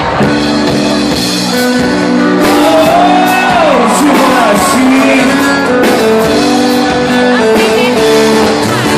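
Live sertanejo band playing, with guitar and held notes, and a singing voice sliding up and down through the middle.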